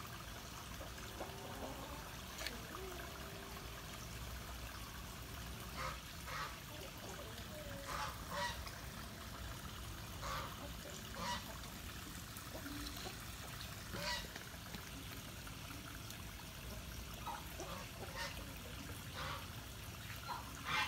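Poultry honking off and on: short calls, often two close together, every few seconds, over a steady low background hum.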